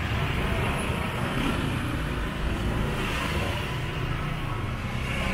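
Street traffic: a steady low engine rumble from passing and idling vehicles, with the general noise of a busy city street.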